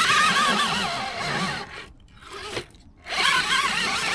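RC rock crawler's electric motor and gearbox whining under throttle in two bursts, the pitch wavering up and down as the throttle is worked, while the tyres scrabble for grip on slippery rock.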